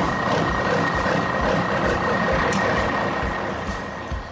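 Heavy vehicle engine sound effect running steadily, with a thin, constant whine over it.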